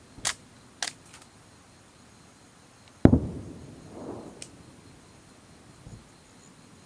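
Aerial fireworks going off: two sharp cracks near the start, then a loud boom of a shell bursting about three seconds in, rumbling and echoing away over about a second, and a faint thump near the end.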